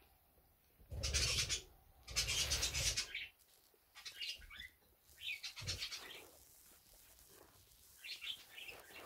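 Guinea pigs squeaking in short high-pitched calls, several times from about four seconds in. Earlier, two louder bursts of fabric rustling from the blanket being handled.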